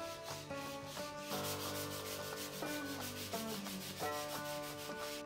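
Sandpaper rubbed by hand back and forth over a plywood tabletop, smoothing the glued seam between two boards: a continuous scratchy hiss of repeated strokes. Soft background music plays underneath.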